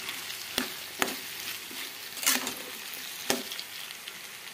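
Chopped flat beans and potatoes sizzling in oil in a stainless steel kadai as they are stirred with ginger-garlic paste, which is frying until its raw smell goes. A spoon clinks sharply against the pan four times.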